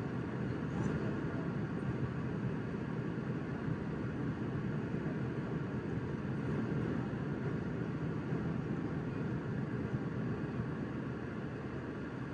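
Jet airliner cabin noise during the climb after takeoff: a steady, low rushing drone of engines and airflow heard from inside the passenger cabin.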